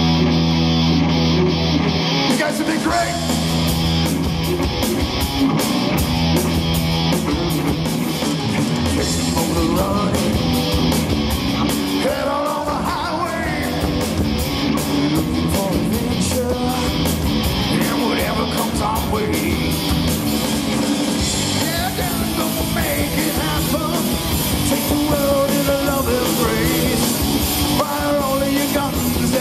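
Rock song with electric guitar, bass and drums, and a singing voice over them.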